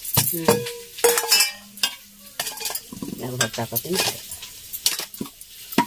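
Aluminium cooking pots, bowls and a metal ladle knocking and clinking as they are handled, about ten separate sharp knocks.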